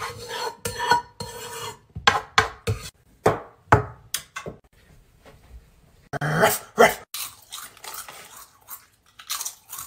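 Pots and dishes clattering: a string of irregular clinks and knocks, with a busier cluster about two-thirds of the way through.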